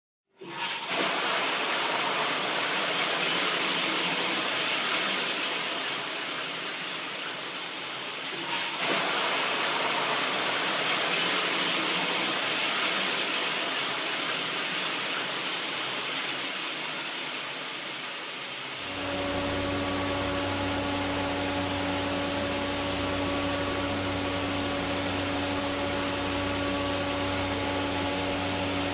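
Steady hissing rush of water flowing into the septic tank compartments. About two-thirds of the way through, a steady electric motor hum with a low drone takes over: the Jet aerator running, drawing air down its shaft into the treatment compartment.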